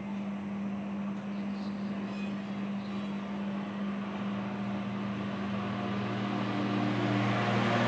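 Steady low drone of an engine running in the background, growing louder toward the end.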